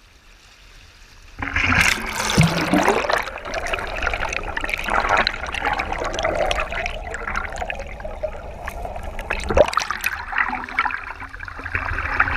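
Rushing waterfall stream water with frequent splashes, starting suddenly about a second and a half in after a quieter start.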